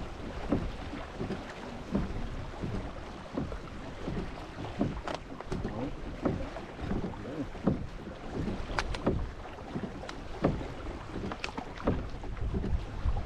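A kayak under way on the water: irregular small splashes and knocks of water against the hull, over a low rumble of wind on the microphone.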